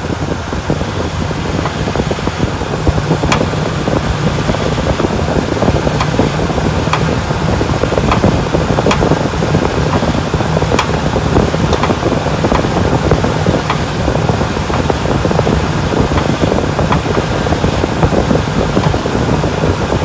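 Second-generation Toyota Tundra engine idling steadily, with sharp pops from the steering rack and pinion about every second as the steering wheel is turned back and forth. The pops come from the rack's worn mounting bushings.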